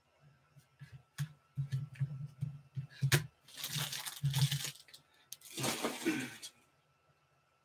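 Foil trading-card pack wrappers crinkling in two bursts as they are handled, after a few sharp clicks.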